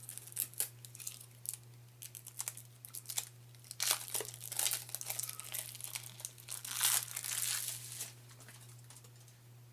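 Plastic wrap on a deck of game cards being torn open along its perforation and crinkled off: a run of crackling and tearing, loudest around four and seven seconds in, dying away near the end.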